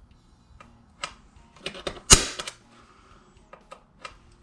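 Spring-loaded automatic centre punch firing with one sharp snap about two seconds in, making a centre mark in the frame for drilling; lighter clicks and taps of the tool being handled come before and after it.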